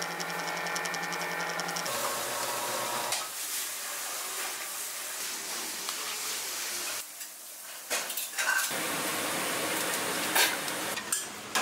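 Kitchen sounds in quick cuts: a steady hum for about the first two seconds, then noodles boiling hard in a large pot of water, with metal pots and bowls clinking and clattering in the last few seconds.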